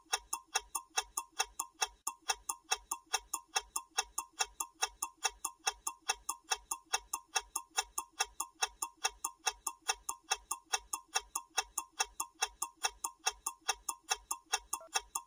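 Ticking-clock sound effect counting down a timer's final seconds: fast, evenly spaced sharp ticks, about four a second.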